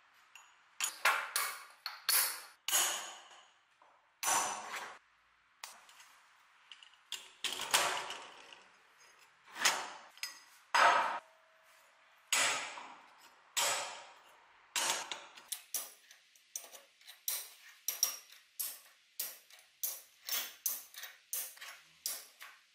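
Flat forged steel strips, gear steel and 4340 steel, clinking against each other as they are handled and stacked by hand, each knock with a short metallic ring. The louder clinks come a second or two apart at first, then give way to a quicker run of small clicks near the end as the strips go onto the pile.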